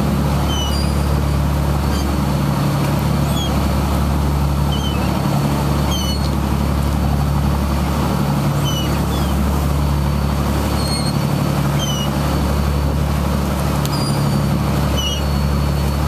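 Fishing boat's engine running with a steady drone, over rushing wake water, while gulls give many short, high cries above it.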